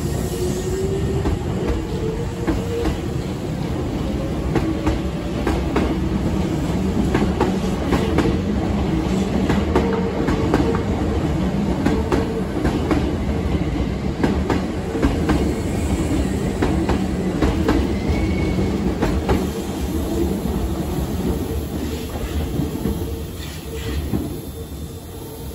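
Hankyu 7000-series electric train pulling out and passing close by. Its motor whine rises in pitch at the start, then its wheels clack steadily over the rail joints as the cars go by, fading near the end.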